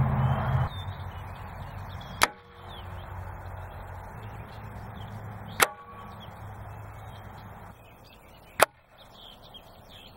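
Three shots from a Gamo Swarm Magnum 10X Gen 3i .177 break-barrel gas-piston air rifle, about three seconds apart, each a sharp crack with a short ringing after it. A low hum underneath drops away within the first second.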